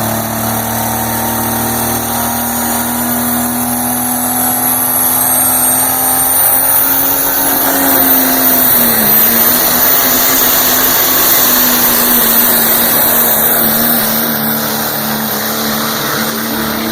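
Diesel pulling truck running hard under load as it drags the sled down the track. A turbo whine climbs in pitch about five to eight seconds in, and the engine gets a little louder, then eases near the end.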